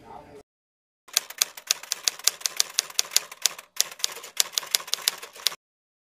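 Typewriter sound effect: a run of rapid keystroke clicks, several a second, with a short break midway.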